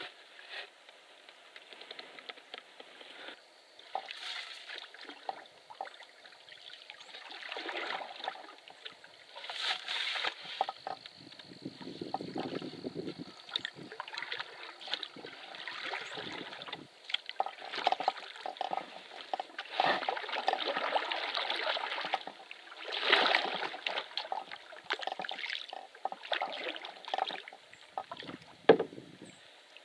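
Canoe being paddled: water sloshing and gurgling with each paddle stroke in irregular surges, with scattered small knocks against the hull. A single sharp knock near the end is the loudest sound.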